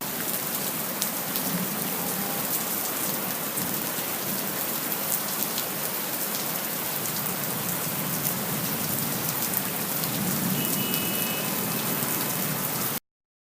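Steady, heavy rain falling on a surface, a dense even hiss with scattered sharp drop ticks. It cuts off abruptly just before the end.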